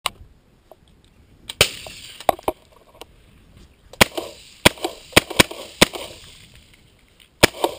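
Suppressed 11.5-inch AR-15 short-barreled rifle firing about ten shots, several in quick succession, each a sharp report with a short ring after it.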